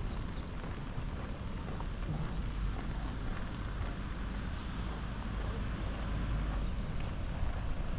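Wind rumbling on the camera microphone over a steady outdoor hiss.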